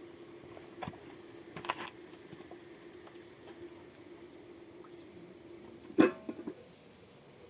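Steady insect chirring with a steady low hum under it, broken by a single short, sharp knock about six seconds in.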